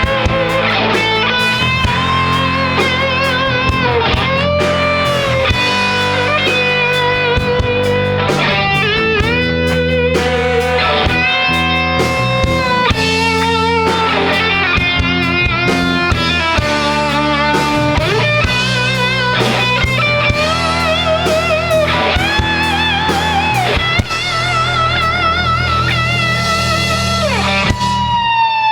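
Live rock band playing an instrumental intro: an electric lead guitar plays held, bending notes with vibrato over bass and drums. Near the end a long note slides down in pitch.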